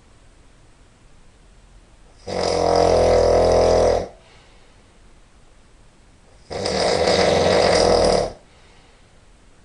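A person snoring very loudly: two long snores about four seconds apart, each lasting under two seconds, with quiet between them.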